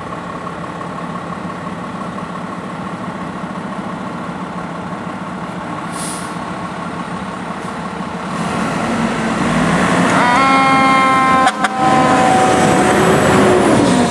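Fire engine's diesel running as it pulls out of the station on a call, with a short air hiss about six seconds in. The engine grows louder as it moves off, and about ten seconds in an air horn sounds, briefly breaking off, followed by a siren rising and falling over the engine.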